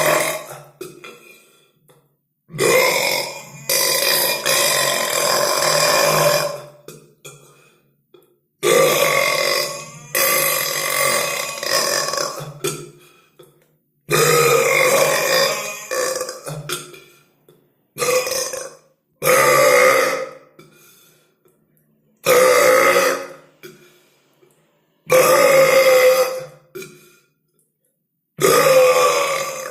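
A string of loud, drawn-out human burps, about ten of them, each lasting one to three seconds, with short silent breaks between.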